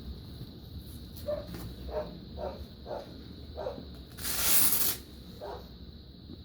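Air hissing for about a second from a manual blood pressure cuff's release valve, starting about four seconds in. Before it come short, soft sounds about twice a second, and a few more follow.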